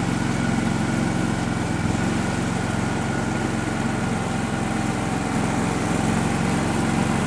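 Engine of an Argo HDI amphibious 8x8 running steadily as it pushes through swamp water; it is a Kohler engine, per the uploader. The level and pitch stay even with no revving.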